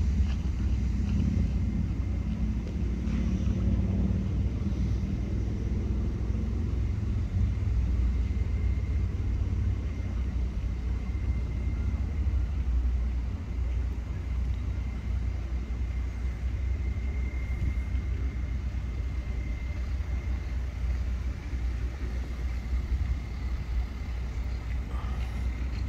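Steady low rumble of wind buffeting the microphone, with a faint thin high tone held above it.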